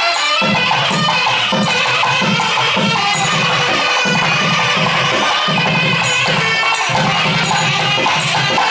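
Nadaswaram ensemble playing raga Shahana: several nadaswarams playing a sustained melody together, with a thavil drum coming in about half a second in with regular strokes and small talam cymbals clinking in time.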